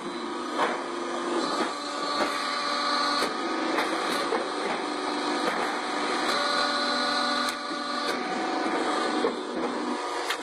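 Corrugated sheet roll forming machine running, a steady mechanical hum with several held tones, broken by sharp metallic clicks and knocks every second or so.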